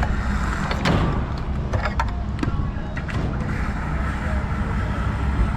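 Suzuki V-Strom motorcycle engine running steadily, with a series of sharp clicks and knocks in the first few seconds.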